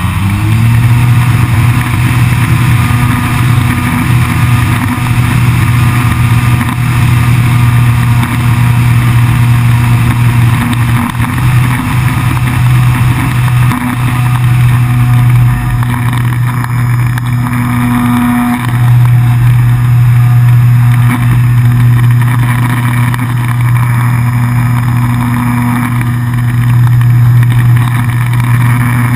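ParkZone Radian RC glider's electric motor and spinning propeller, heard from on top of the wing in flight. It gives a steady drone under the rush of air past the camera, dipping slightly in pitch at the very start and then holding steady.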